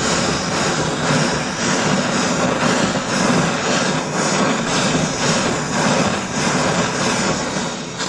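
Handheld gas torch burning with a steady hiss as its blue flame heats a metal buckle piece to an orange glow.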